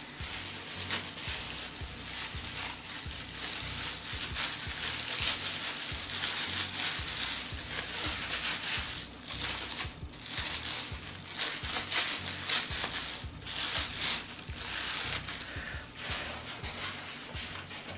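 Paper towels rustled, rubbed and crumpled as paint-covered hands are wiped clean, an irregular scrunching and scraping that swells and eases.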